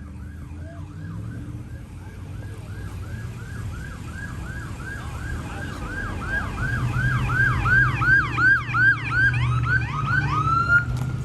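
Siren sounding in a fast yelp, about three rising-and-falling sweeps a second, growing louder through the second half and cutting off near the end, over a steady low hum.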